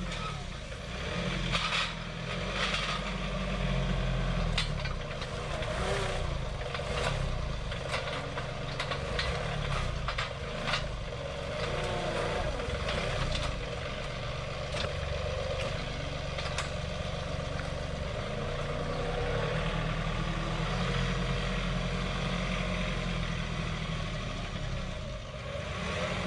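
A John Deere 2038R compact tractor's three-cylinder diesel engine runs steadily. Sharp knocks and clanks come repeatedly over roughly the first ten seconds as its grapple loads the dump trailer.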